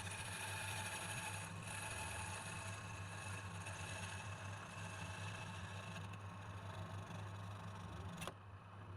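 Wood lathe running with a steady motor hum, and a steady hiss of wood being worked on the spinning piece. The hiss cuts off suddenly about eight seconds in while the motor hum goes on.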